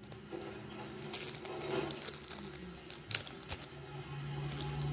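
Small plastic packet crinkling and rustling as it is handled and opened, with a few sharp clicks, over a low steady hum.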